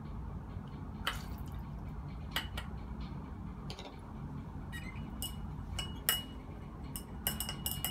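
Glass stirring rod tapping and clinking against a glass beaker of liquid as it is stirred: a few scattered taps at first, then a quick run of clinks with a ringing note from about five seconds in.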